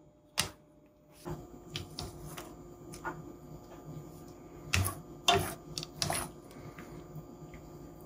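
Sharp clicks and taps of a wire mesh strainer and wooden chopsticks knocking against a pot while cooked noodles are lifted out of the water. The loudest knocks fall in a cluster about five to six seconds in, over a steady low hum that starts about a second in.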